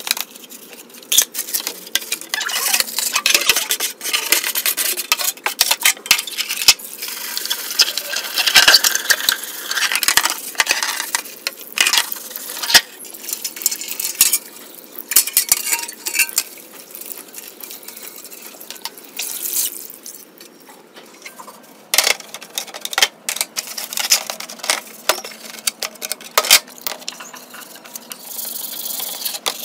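A wet plastic monitor housing and its metal chassis being scrubbed with a scouring pad and rinsed with water, with scratchy rubbing, splashing and frequent knocks and clatter as the parts are handled.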